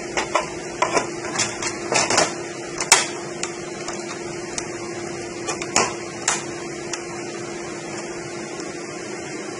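Scattered light clicks and knocks of hands handling the plastic air shroud and parts inside an open Dell PowerEdge server chassis, over a steady hum.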